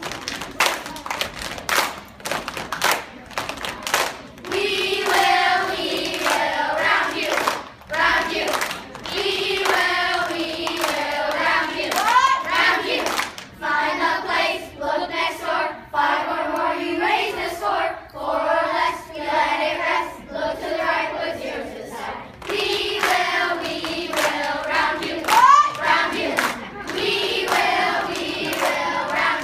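A class of children singing a song together in chorus, keeping time with hand claps. For the first few seconds there is clapping alone, then the singing comes in.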